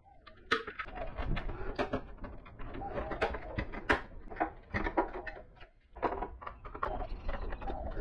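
Plastic PC case front bezel parts being pulled apart and handled: irregular clicks, knocks and clacks of hard plastic pieces.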